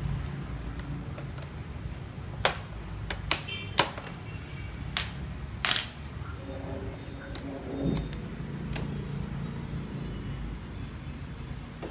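Sharp clicks and taps of laptop parts and tools being handled during a teardown: about five loud clicks in the first half, then fainter ticks, over a low steady hum.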